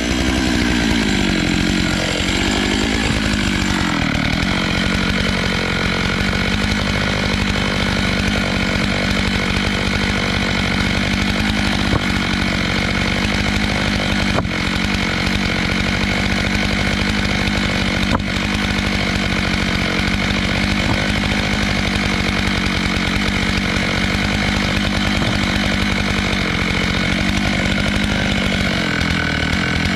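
Stihl MS 661 chainsaw on a small log mill, running at high revs under load as it cross-cuts a log. Its pitch drops sharply just at the start, wavers for a few seconds, then holds steady.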